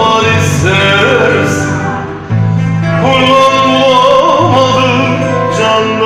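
A man singing a Turkish folk song (türkü) in an ornamented, wavering voice, accompanied by a bağlama (saz) with sustained low notes beneath.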